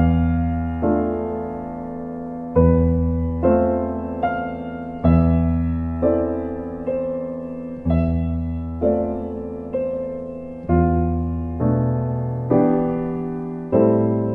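Slow, soft piano music: sustained chords struck every one to two seconds over low bass notes, each fading away.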